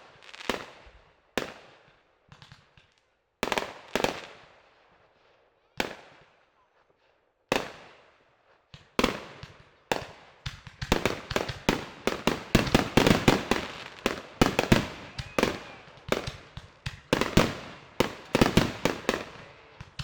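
Fireworks exploding: a dozen or so separate bangs, each with a fading echo, then from about ten seconds in a rapid barrage of bangs and crackles.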